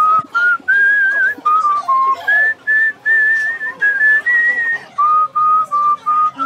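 A person whistling a tune in a string of short, clear notes. The notes climb over the first few seconds and drop lower near the end.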